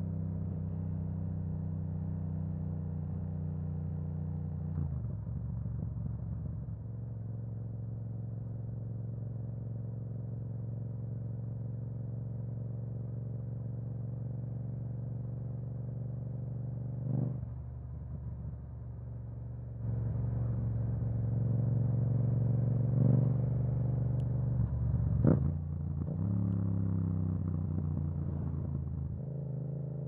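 Yamaha MT-07's parallel-twin engine through an aftermarket Akrapovic exhaust, heard while riding. It runs at a low, even note with several gear changes, gets louder in the second half, and has a few short sharp revs and a rising rev near the end.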